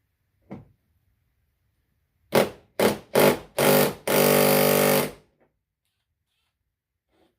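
A small electric power-tool motor, worked on bolts, blipped in four short bursts and then run steadily for about a second with an even whine.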